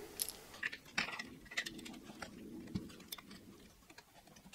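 Faint scattered clicks and light taps of small metal hardware and frame parts being handled, several in the first three seconds.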